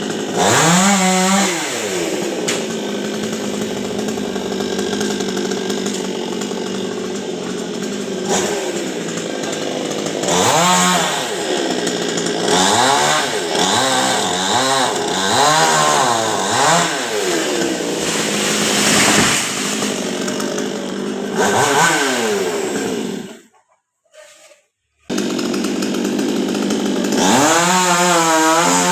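Chainsaw engine running, its pitch rising and falling again and again as the throttle is opened to cut into a coconut tree. Near the end the sound drops out abruptly for about a second and a half, then comes back running fast.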